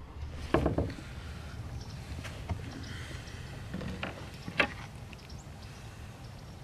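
A few hollow knocks and bumps of a wooden paddle and the paddler's body shifting against a plastic kayak. The loudest come about half a second in and again a little past the middle, over a steady low rumble.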